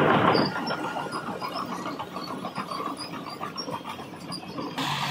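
Diesel engine of heavy construction machinery running under load, with an abrupt change in the sound near the end.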